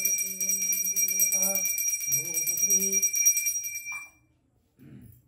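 Small brass puja hand bell (ghanti) rung rapidly and continuously, its high ringing cutting off about four seconds in, while a man chants.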